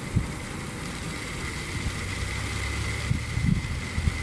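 A motor running steadily with a low hum and a faint, steady high whine while used engine oil is vacuum-drawn out through tubing into a sealed jar; a few low bumps about three seconds in.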